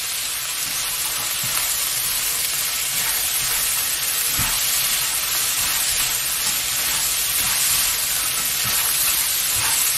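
Small crabs sizzling in hot oil in a wok over high heat, stirred and turned with a silicone spatula, with a few faint knocks and scrapes of the spatula against the pan.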